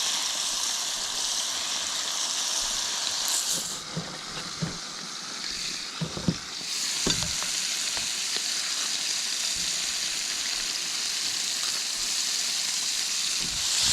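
Chorizo and green beans frying in a wok, a steady sizzle. In the middle the sizzle dies down briefly while a few knocks of stirring against the pan come through, then it picks up again.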